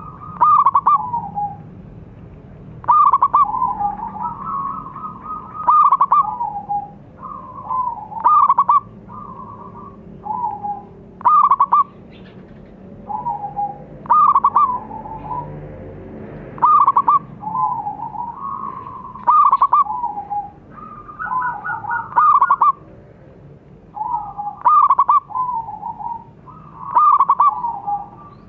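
Zebra dove (perkutut) cooing its song over and over: a quick run of short staccato coos followed by lower drawn-out coos, with a new phrase about every two and a half seconds.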